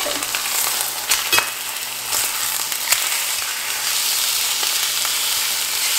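Beef chuck roast searing in olive oil in a cast-iron skillet over medium-high heat, sizzling steadily. A few sharp clicks of a fork against the meat and pan come as the pieces are turned.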